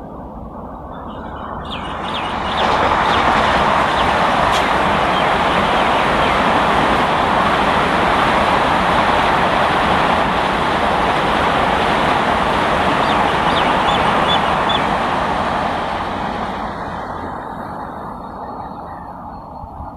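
Express train passing at speed: a steady rush of wheels on rail that builds over the first couple of seconds, holds, and fades away over the last few seconds.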